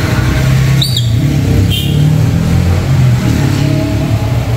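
Nissan Grand Livina's engine running through its stock exhaust, a steady low drone that rises and falls slightly in pitch. Two brief high chirps are heard about a second in and again shortly after.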